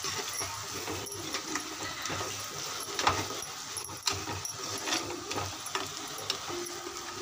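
Steel spoon stirring thick masala in a clay pot (mann chatti), scraping and knocking against the pot with a few sharp clicks over a steady low background.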